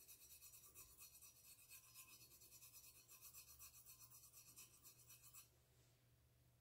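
Fingertips rubbing paint back and forth over the textured coating of a stainless steel tumbler, giving a faint, rapid rasping that stops about five seconds in.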